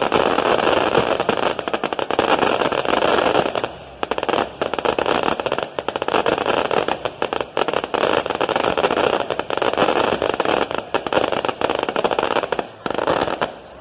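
Fireworks crackling: a loud, dense stream of rapid small pops and crackles, with brief lulls about four seconds in and again near the end.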